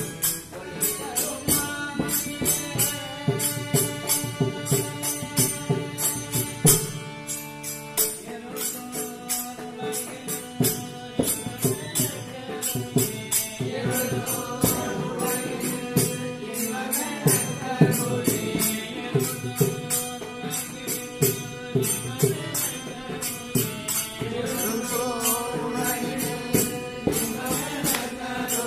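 A group of voices chanting a devotional song together, with percussion keeping a steady beat of about two to three strokes a second.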